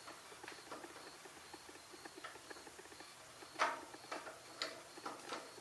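Light scratching and clicking of fingers working at a hard-to-reach fastener on a small engine's carburetor mounting, with a sharper metallic clack about three and a half seconds in and a few lighter clacks after it.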